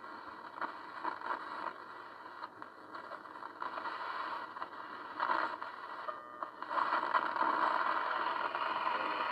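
Hiss and static from a Teac clock radio's small speaker on the AM band, the receiver working again after repair, with a brief whistling tone about six seconds in and the hiss growing louder soon after.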